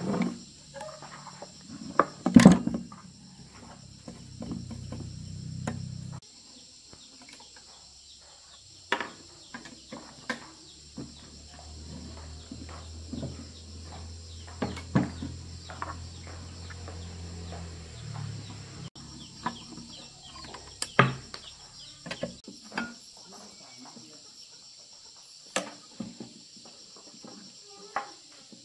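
Steady high chirring of insects, with scattered sharp clicks and knocks, the loudest about two and a half seconds in. A low hum comes in during the first six seconds and again for several seconds in the middle.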